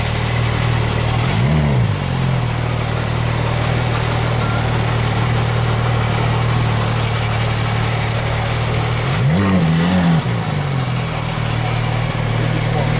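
Car engine idling with a steady low note, blipped twice: a quick rev that rises and falls back about a second and a half in, and another, slightly longer, about nine and a half seconds in.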